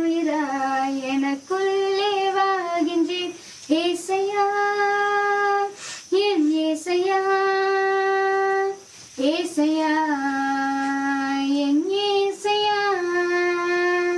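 A girl singing solo and unaccompanied: a slow melody in long held notes, with short pauses for breath between phrases.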